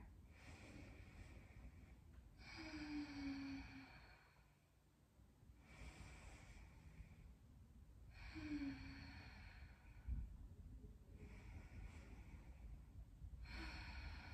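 A woman's slow, deep breathing: three long, audible breaths out, about five to six seconds apart, each with a fainter breath in before it.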